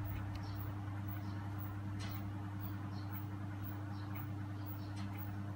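A steady low hum, with faint light clicks of a metal crochet hook working through yarn, two of them a little louder, about two and five seconds in.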